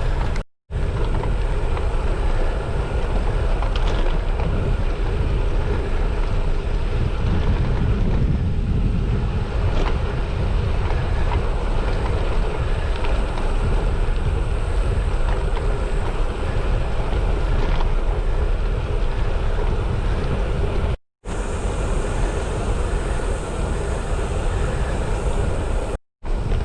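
Wind rushing over the microphone of a camera riding along on a moving bicycle, a steady, heavy rush. The sound cuts out completely three times, each time for a fraction of a second.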